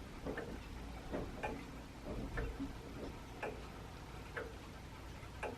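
Mechanical pendulum clock ticking faintly and evenly, about one tick a second.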